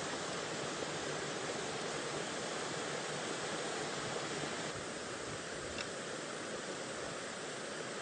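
A steady, even rushing noise, with a faint click about six seconds in.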